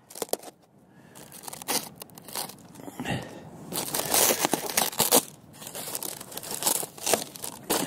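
Foam sheet and plastic packing wrap crinkling and tearing as a folding knife slits it open and hands pull it apart. The rustling comes in irregular crackles after about a second and is loudest about halfway through.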